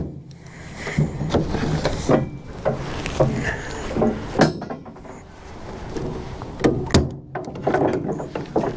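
Ratchet straps being released: irregular metallic clicks and clunks as the ratchet buckles are opened, with rustling of the strap webbing being pulled loose between them.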